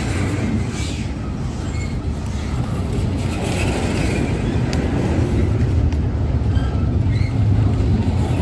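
Double-stack intermodal freight train's well cars rolling past, a steady loud rumble of steel wheels on rail with a few brief faint high squeaks.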